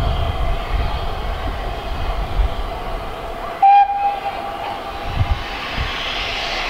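Great Western steam locomotive whistle giving one short, sharp, loud blast about halfway through, its tone trailing off briefly, over a steady background rumble.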